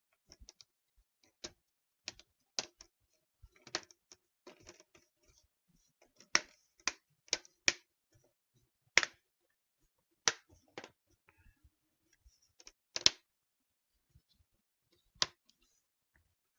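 Plastic screen bezel of an Acer Aspire E5-575 laptop being pressed back onto the lid, its clips clicking into place: a string of irregular sharp clicks and snaps, the loudest a little after six, nine, thirteen and fifteen seconds in.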